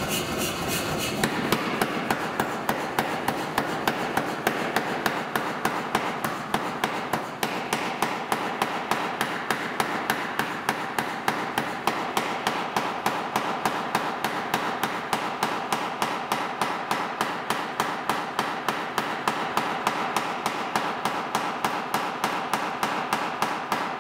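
Power hammer striking a red-hot half-inch square steel bar in a steady run of about three to four blows a second, flattening it. The blows start about a second in.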